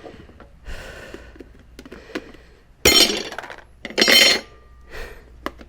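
Steel tire irons clinking and scraping against the motorcycle's wheel rim as the old tire's bead is levered over it, with light ticks and two louder metallic scrapes about three and four seconds in. Described as kind of noisy at times.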